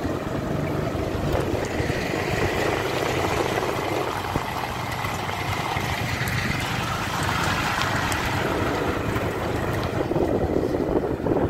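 Engine of a small open vehicle running steadily as it drives along a rough gravel road, heard from on board, a little louder near the end.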